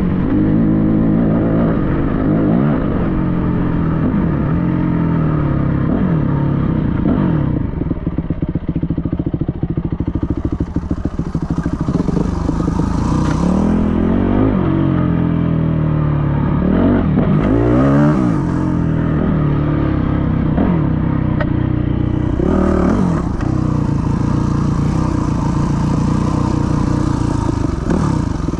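Yamaha WR250F's four-stroke single-cylinder engine being ridden hard, its pitch rising and falling over and over as the throttle is opened and closed through the gears.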